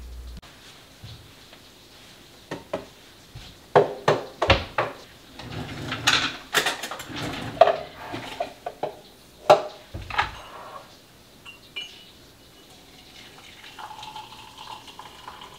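Kitchen crockery and cutlery clinking and knocking on a counter: a run of sharp clinks for several seconds, then quieter. Near the end, a faint pour of liquid from a carafe into a mug.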